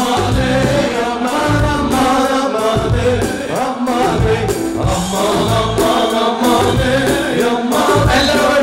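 Live wedding band playing Turkish folk dance music for a line dance, with singing over a steady, regular beat.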